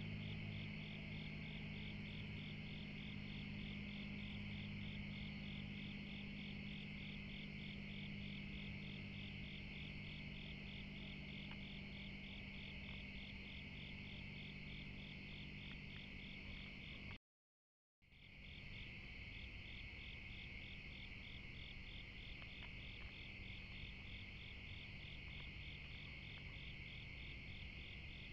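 Night chorus of crickets: steady, evenly pulsed high chirping over a faint low hum. It drops out for under a second about two-thirds of the way through.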